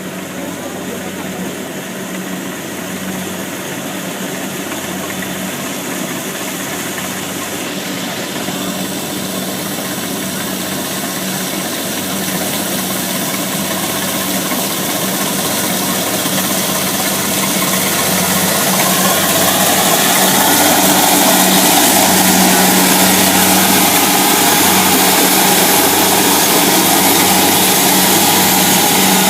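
Kubota DC70 Plus combine harvester's diesel engine running steadily, getting louder from about twelve seconds in and levelling off about eight seconds later.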